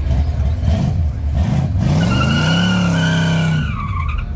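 G-body Chevrolet Malibu's engine revving up, rising in pitch, as the car accelerates hard away. A tire squeal starts about halfway in, holds for over a second and falls off near the end.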